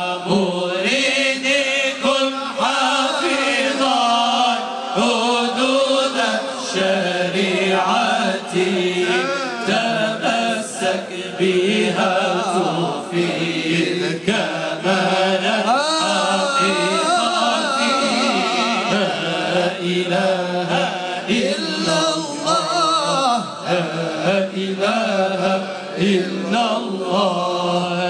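Sufi devotional chanting (sama'): voices singing a melodic Arabic religious hymn without a break, over a steady low drone.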